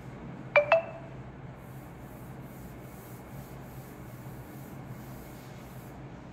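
Two sharp clicks about half a second in, then a run of short scratchy writing strokes as a problem is written out.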